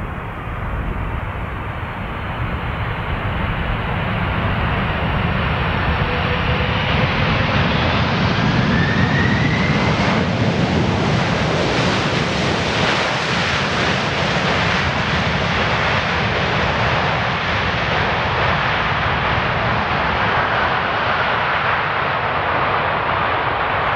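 Boeing 747's four jet engines rumbling on the landing roll, growing louder as the jet passes close by and then easing off, with a faint rising whine a few seconds in.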